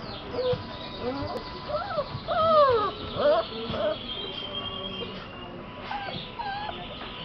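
Puppies whining and yelping: many short cries that rise and fall in pitch, bunched together in the first half and again a little past the middle.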